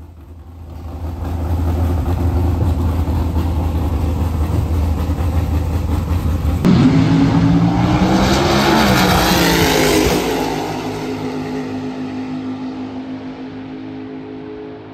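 A drag-racing car's engine under full throttle. A steady loud low rumble gives way, about seven seconds in, to a run whose pitch sweeps up and down as the car goes down the strip, loudest around nine seconds, then fading into the distance.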